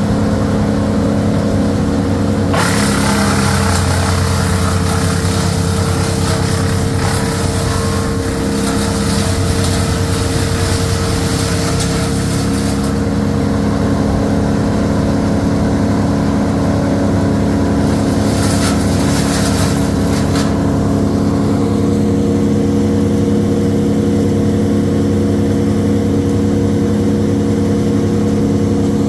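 An engine running steadily at a constant speed. A loud, harsh rushing noise lies over it from about two and a half seconds in until about thirteen seconds, and again briefly near twenty seconds.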